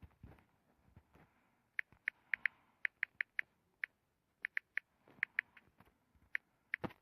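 Light, quick taps on window glass, coming in small clusters of two to four with short pauses between.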